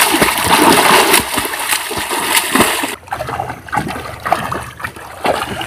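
Water splashing and sloshing as a person swims through a pond with their head above the water, made up of many short splashes from the strokes. The splashing gets quieter and sparser about three seconds in.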